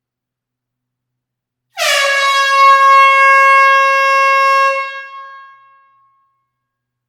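Air horn sounding one loud, long blast: it starts just under two seconds in with a slight dip in pitch, holds a steady tone for about three seconds, then fades out.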